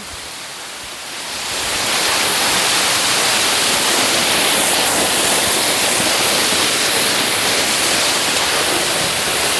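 Waterfall rushing, a steady loud hiss of falling water that swells about a second in and then holds.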